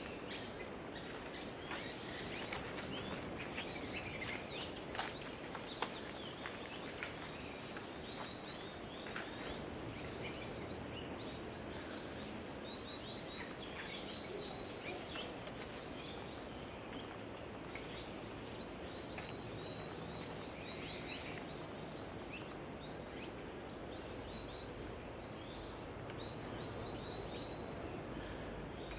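Birds chirping and calling in the trees: many short, high, sweeping notes throughout, with a loud flurry about five seconds in and another around fourteen seconds.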